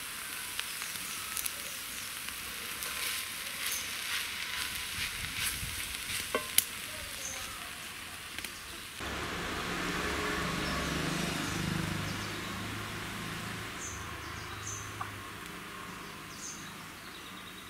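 A wooden spoon scraping and tapping as the drumstick-leaf stir-fry is served from a steel pot onto a plate, over a steady crackling hiss like frying, with one sharp tap about six and a half seconds in. About halfway through the sound changes to a lower, fuller hiss that swells and fades.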